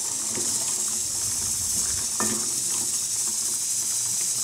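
Thin curry boiling in a pot: a steady hiss of bubbling and steam, with faint scattered ticks.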